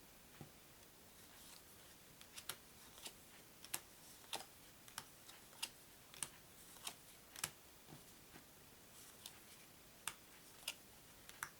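Light, crisp clicks of Mattel DOS playing cards being laid down on a table one at a time, roughly every half second to second.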